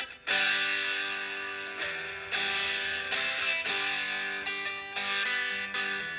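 Electric guitar playing strummed chords that ring out, a new chord struck roughly every half second to a second.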